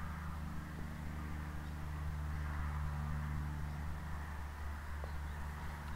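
Steady low machine hum made of several held low tones with a faint hiss over them, even in level throughout.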